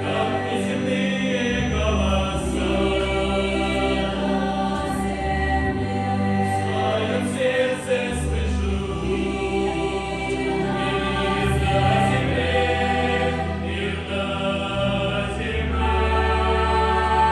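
Mixed choir of women's and men's voices singing a carol in long, held chords over a low bass line.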